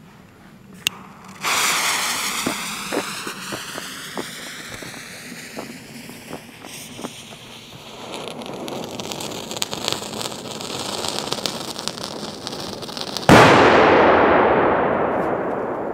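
A Funke Tuono firecracker's fuse catching and hissing steadily for about twelve seconds, with a few footsteps in the first seconds, then one very loud bang near the end that echoes and dies away slowly.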